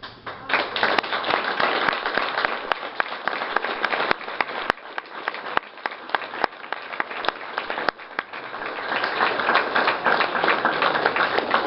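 Audience applauding. The applause breaks out suddenly at the close of a speech, thins a little midway and swells again near the end.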